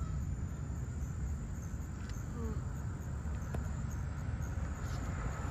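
Outdoor ambience: a steady low rumble under a faint, steady high-pitched insect trill, with a couple of faint short chirps.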